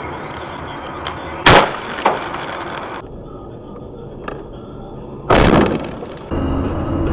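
A car's windshield struck hard and shattering: a loud sharp crash about a second and a half in, followed by a smaller knock, then a second loud crash a little after five seconds that trails off briefly, over steady road noise.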